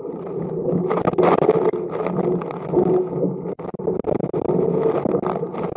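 Hurricane-force wind blowing hard in gusts and buffeting the microphone, with the sound briefly cutting out a few times in the second half.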